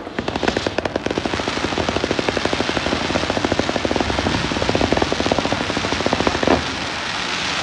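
Fireworks crackling in a rapid, even string of sharp cracks, many a second. About six and a half seconds in there is one louder bang, followed by a steady crackling hiss.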